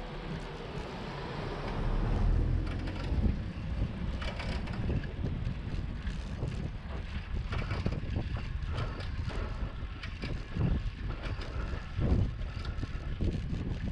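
Ride noise from a bicycle picked up by a handlebar-mounted action camera: wind buffeting the microphone and tyre rumble, with frequent short clicks and rattles from the bike. The low rumble swells about two seconds in.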